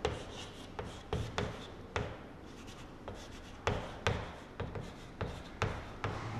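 Chalk writing on a chalkboard: irregular sharp taps and short scratching strokes as the letters go on, about a dozen taps in all.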